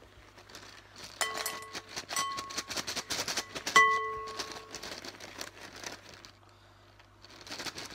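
Small plastic pieces poured and shaken from a bag into a glass bowl, clattering in quick rattling runs. The bowl rings out briefly after three of the harder hits.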